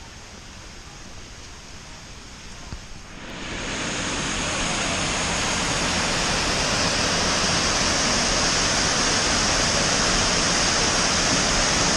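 Waterfall rushing; the sound swells over about a second, some three seconds in, to a loud, steady rush of falling water.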